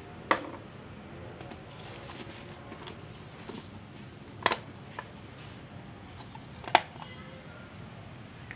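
Handling noise from a power tool kit: hard plastic clicks and knocks as the tool body, parts and a socket-and-bit accessory box are moved in and out of the plastic carry case, with light rustling between. There are three sharp clicks, just after the start, about halfway through and about two-thirds through, plus a softer one.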